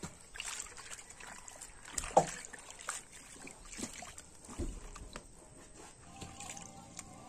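Hands swishing and splashing napa cabbage leaves in a basin of water while washing them, in irregular splashes and trickles, louder about two seconds in.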